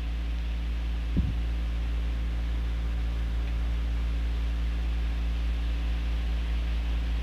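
Steady low electrical hum with a faint hiss, the recording's background noise, with one short soft low blip about a second in.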